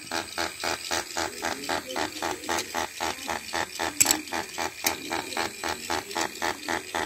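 Toy fishing game's rotating pond running, its motor and plastic gears clattering in a fast, even rhythm of about five beats a second. A couple of sharp plastic clicks come about four and five seconds in.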